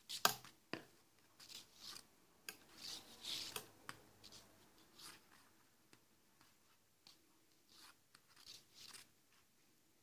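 Quiet rustling and scratching of knitted fabric and yarn being handled with a thin needle, with a few light clicks, the sharpest just after the start.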